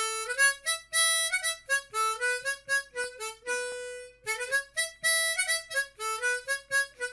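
Harmonica playing a short, lively melody as intro music, the same phrase starting over about four seconds in.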